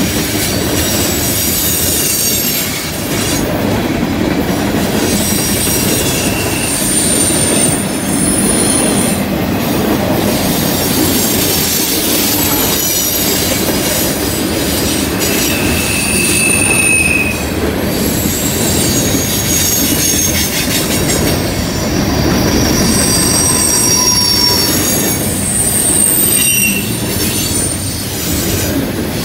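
Freight cars rolling past on a curve: a steady rumble of steel wheels on rail, with brief high-pitched wheel squeals coming and going at several different pitches.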